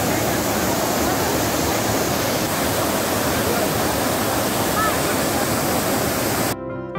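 Water pouring down an illuminated garden cascade: a steady rushing. About six and a half seconds in it cuts off sharply and plucked-string music begins.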